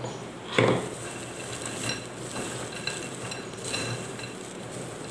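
Raw peanuts clicking and rustling against a glass bowl as a hand stirs them into a thick spice batter, with one sharp knock about half a second in and a few lighter clicks after it.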